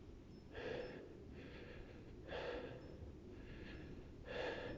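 A person breathing heavily close to the microphone. There are three louder breaths with softer ones between them, in an even rhythm.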